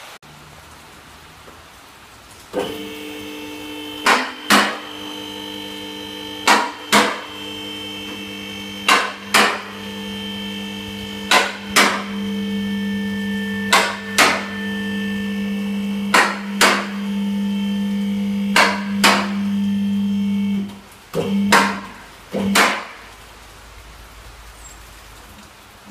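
Electric motor and hydraulic pump of a car lift running steadily as it raises the car body off the lowered engine and subframe. The lift's safety latches clack in pairs about every two and a half seconds. The motor stops about 21 seconds in, and a few short blips and clacks follow.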